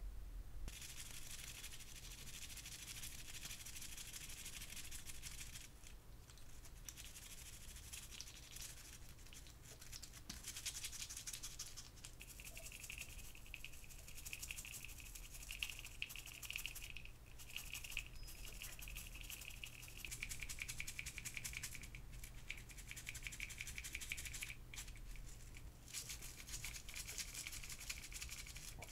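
Small model parts being rubbed and scrubbed by hand with a cloth or cotton wad: a faint, rapid, scratchy rubbing that stops briefly three times.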